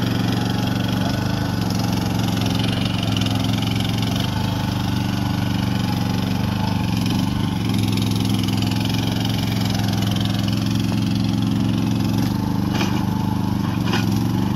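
Small engine of a tracked mini excavator running steadily as it digs, its pitch shifting slightly with the load of the boom and bucket. A couple of sharp knocks near the end.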